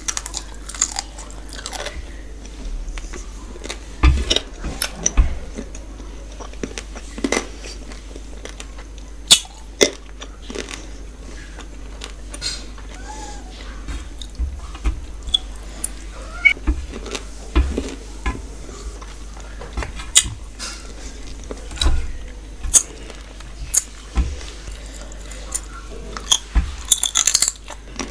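Close-up chewing and biting of spicy duck masala and rice eaten by hand: short, irregular crunches and clicks every second or two.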